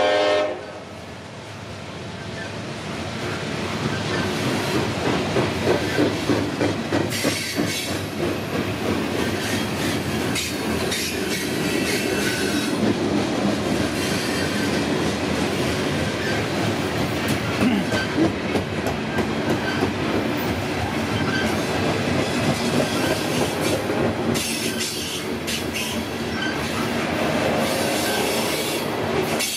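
Loaded coal hopper cars rolling past at speed, a steady rumble with the clickety-clack of wheels over rail joints and occasional faint wheel squeal. A locomotive horn cuts off about half a second in.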